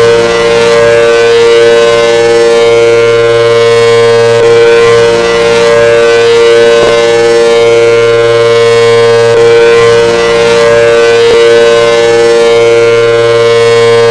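Outdoor warning siren sounding a loud, steady tone that holds one pitch.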